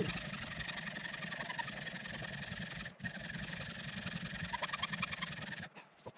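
A small hacksaw sawing through a wet dead log in a steady run of rasping strokes, with a brief break about halfway, stopping shortly before the end.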